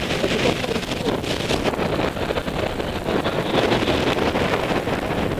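Airflow from paraglider flight rushing and buffeting over a harness-mounted camera's microphone, a steady noisy rush.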